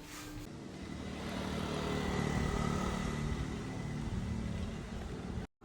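A motor vehicle running, with a steady road-noise hum that swells over the first couple of seconds and then holds.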